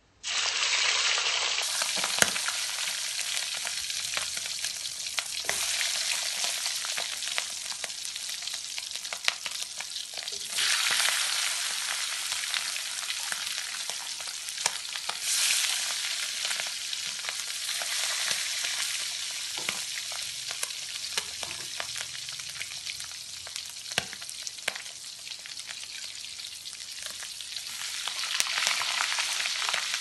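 Hot oil in a wok starting to sizzle loudly the moment ingredients drop in, then frying steadily while a spatula stirs, with a few sharp clinks against the wok. The sizzle swells again about ten and fifteen seconds in, and once more near the end.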